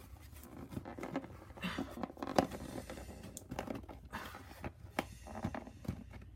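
Cardboard toy box being worked open by hand: scraping and crinkling with irregular clicks and taps, and one sharper click about two and a half seconds in.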